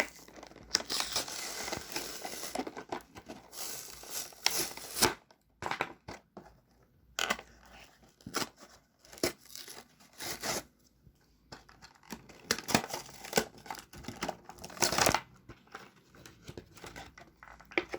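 Toy packaging being torn open by hand. A longer rip comes about a second in, then a run of short tears, crinkles and sharp snaps with pauses between them.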